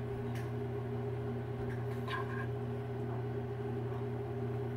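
Steady low electrical hum of a kitchen appliance, with a couple of faint soft rustles as beef strips are scooped into a pita pocket.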